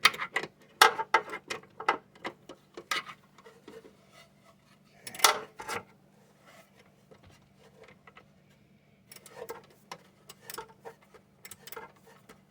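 Irregular small metal clicks and clinks of a nut or screw being worked on and tightened inside a metal fare box, with one louder knock about five seconds in and a quieter pause after it. A faint low steady hum runs underneath.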